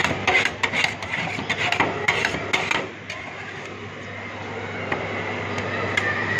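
Two metal spatula scrapers chopping rolled ice cream mix on a stainless steel cold plate: a rapid run of sharp metal-on-metal taps for about three seconds. Then quieter scraping as the mix is worked and spread across the plate.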